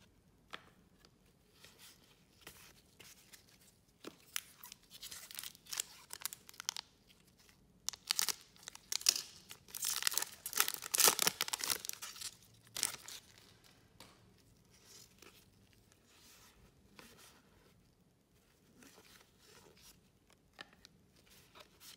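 A trading-card pack wrapper being torn open and crinkled by hand, loudest in a run of tearing and crinkling a little past the middle, with lighter rustling and handling of card stacks around it.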